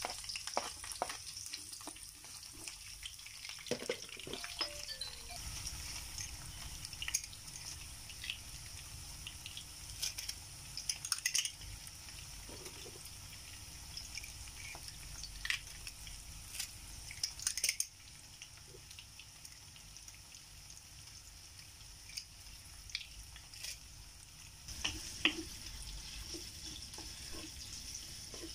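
Onion wedges sizzling in oil in a non-stick frying pan: a steady high hiss with scattered light clicks and taps.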